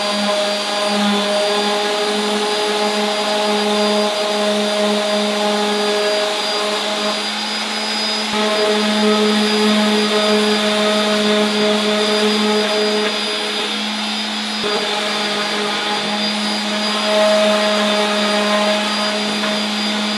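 DeWalt electric hand sander running steadily, sanding the edges of a wooden board with 220-grit sandpaper: a constant motor hum with a sanding hiss.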